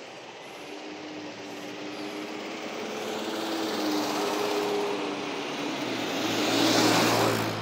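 Taxi driving up and passing close by. Its tyre and road noise builds steadily to a peak about seven seconds in, then falls away as it goes past.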